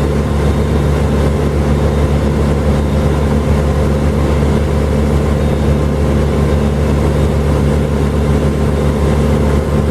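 A large engine running steadily at a constant speed, with a low, even drone throughout.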